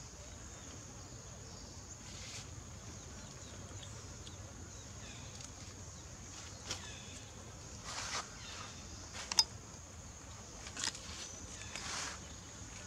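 Steady high-pitched insect drone with a few brief rustles and scuffs, and a short sharp squeak about nine seconds in.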